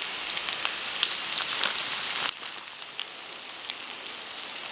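Sliced Maultaschen, onions and bacon sizzling in hot oil in a frying pan over a spirit stove: a steady hiss with many small crackles. It drops abruptly quieter a little over two seconds in.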